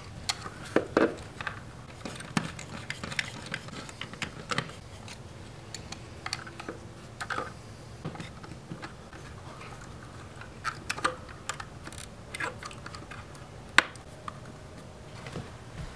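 Scattered small clicks and taps of plastic as a 3D-printed window blind clip is fitted to a door: a screwdriver working at the clip and the blind slats rattling, with one sharp click near the end as the blind's bottom rail is pressed into the clip.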